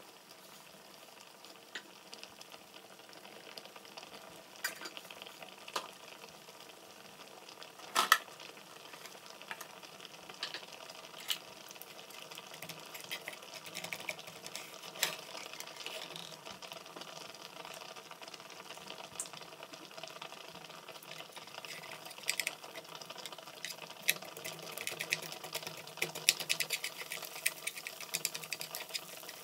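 Mixed vegetables sizzling in a frying pan next to a pot of pasta water at a rolling boil, with chopsticks stirring and scraping in the pan. There is a sharp knock about eight seconds in and denser crackling and clicking near the end.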